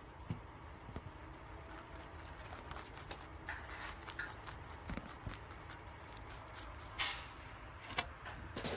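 A rabbit chewing crunchy leafy greens, a run of quick small crunching clicks. A few louder sharp knocks come near the end.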